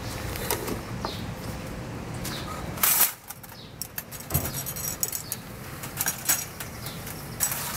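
Galvanized wire live-trap cages rattling and clinking as they are handled, with scattered sharp metal clicks and one loud clank about three seconds in.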